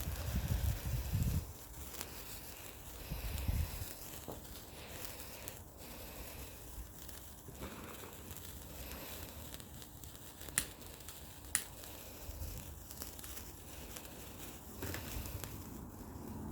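Hand-held sparkler fizzing and crackling. Wind rumbles on the microphone early on, and two sharp cracks come about a second apart midway.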